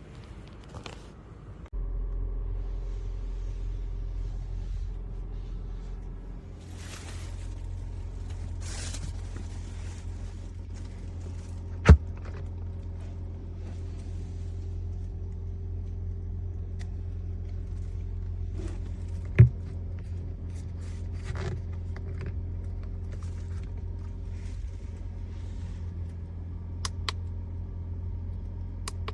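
Steady low rumble of a running car heard from inside the cabin, starting abruptly about two seconds in, with two sharp knocks partway through.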